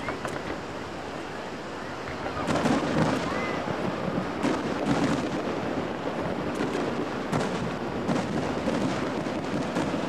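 Aerial fireworks shells bursting: repeated booms and crackles begin about two and a half seconds in and follow roughly every second over a steady rumble.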